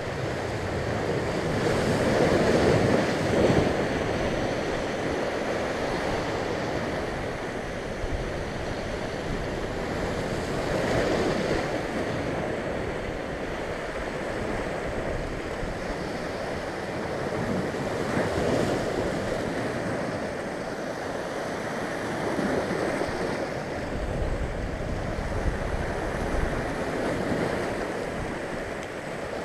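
Sea waves surging and breaking in white water against the rocky shore just below, a steady rush of surf that swells with each breaker every several seconds.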